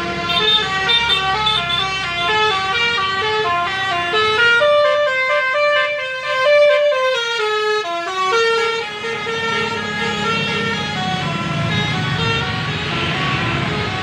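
Indonesian 'telolet' bus horn playing a fast melody of short, stepping notes without a break. Engine and road noise build underneath near the end.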